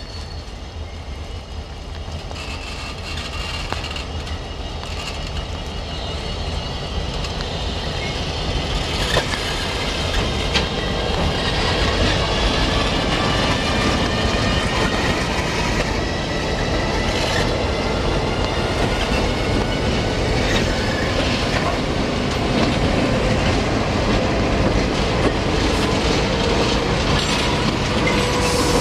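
Loaded coal train hauled by diesel locomotives approaching, growing steadily louder for about the first twelve seconds and then running on at full strength. Its wheels squeal in several high, drawn-out tones over a deep rumble, with scattered clicks of wheels on the rails.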